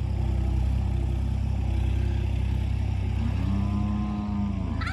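A vehicle engine running at a steady low idle. About three seconds in, a cow moos once, a drawn-out call of about a second and a half that rises and falls in pitch.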